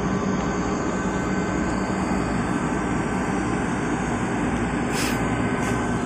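Steady whir of cooling and ventilation fans around a running network equipment rack, an even rushing noise with a faint hum under it. A couple of faint clicks come near the end.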